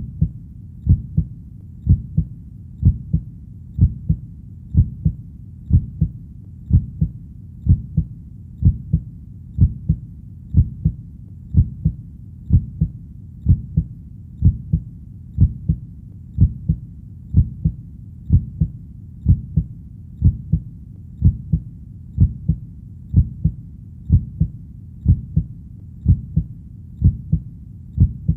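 Heartbeat in a slow, steady lub-dub rhythm, about one beat a second. Each beat is a pair of deep thumps, with a low steady hum between beats.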